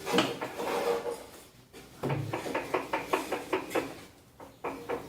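Washing-machine parts being handled, with a short scrape and then a fast even run of sharp clicks, about six a second, like a ratchet; a second run of clicks starts near the end.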